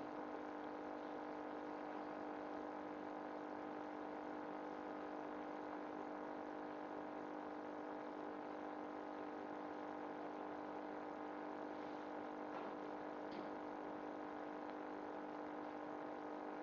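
Steady hum of a small motor or fan, with a couple of faint clicks near the end.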